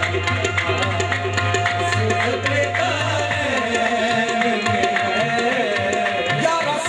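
Qawwali music: quick tabla strokes over a held, wavering melodic line, with a low steady tone underneath that drops out about halfway through.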